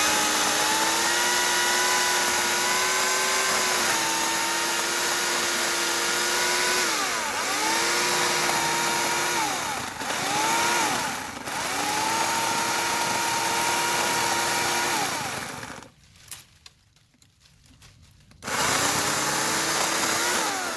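Portland 14-inch electric chainsaw running at full speed with its freshly re-tensioned chain, the motor whine dipping briefly in pitch twice as it slows under load in the cut. It stops about 16 seconds in and starts again a couple of seconds later.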